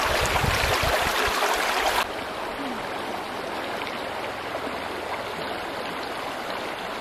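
Shallow stream water rushing through a woven bamboo fish trap. About two seconds in it drops suddenly to a quieter, steady flow of the river.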